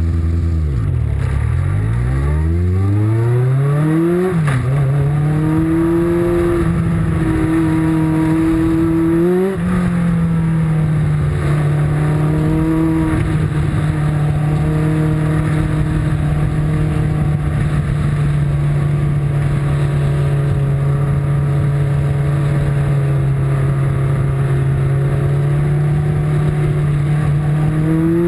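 Onboard sound of the #39 race car's engine. It revs up hard over the first four seconds, dips briefly, then holds a steady high engine note at speed, with a short rise and drop about nine seconds in.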